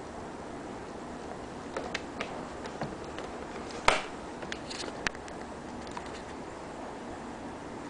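A single sharp air rifle shot about four seconds in, with lighter clicks and taps scattered before and after it.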